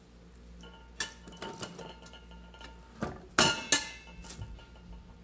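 Metal clanking and clinking: a sharp knock about a second in, then a cluster of louder knocks with a little ringing around three and a half seconds in. A faint steady whine drops out at the start and comes back near the end.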